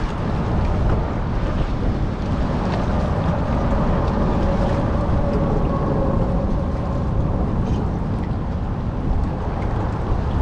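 Wind buffeting the action camera's microphone over fast current rushing along a concrete wall: a steady low noise. A faint hum comes in for a few seconds in the middle.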